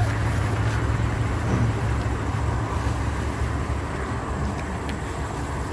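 Steady low rumble of a motor vehicle moving, heard with an even noise haze and easing slightly in level toward the end.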